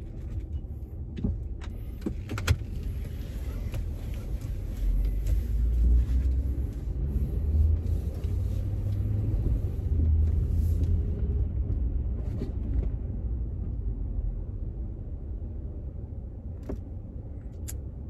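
Engine and road rumble heard inside a pickup truck's cab as it drives, swelling and easing through the middle. A few sharp clicks or knocks cut through it, the loudest about two and a half seconds in.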